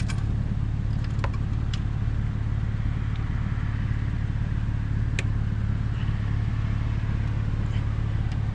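A vehicle engine idling steadily with an even low hum. A few light clicks are heard, about one and two seconds in and again about five seconds in.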